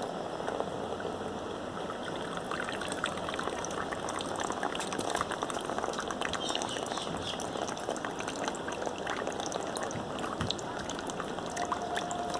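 Thin stream of water pouring from a tube into a shallow plastic tub, trickling and splashing steadily as the tub fills.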